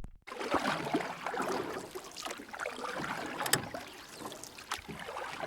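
Moving river water, a dense watery rush full of small splashes and clicks, starting abruptly about a third of a second in.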